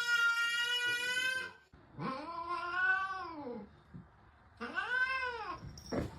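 A cat giving three long, drawn-out meows. The first is held level and the next two rise and then fall in pitch.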